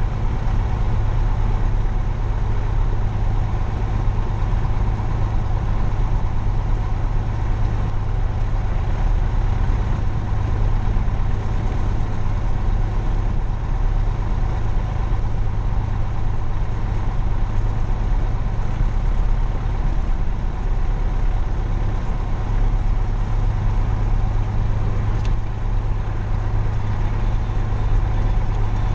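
Cessna 172's piston engine idling steadily with the propeller turning, heard from inside the cabin as a constant low drone.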